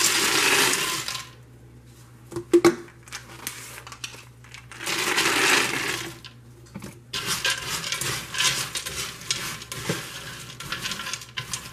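Shelled peanuts poured into a slow cooker's pot with a rushing rattle, twice: once at the start and again about five seconds in. Then a hand spreads the peanuts with a lighter rustling clatter.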